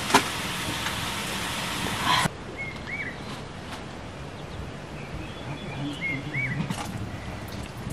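A small bird calling: a short arched chirp, given twice about three seconds apart over quiet outdoor background. Before the first call, for about two seconds, a steady hiss with small crackles that stops abruptly.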